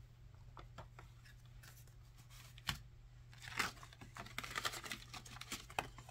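Banknotes rustling and a glossy cash envelope being handled, its flap opened, with soft crinkles and small taps. There is one sharp tap a little under three seconds in, and most of the crinkling comes in the second half. A faint steady low hum runs underneath.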